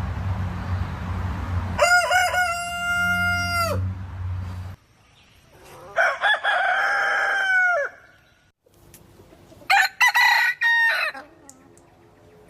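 Rooster crowing three times, each crow a long drawn-out cock-a-doodle-doo. A low rumble runs under the first crow and stops abruptly a little before the second.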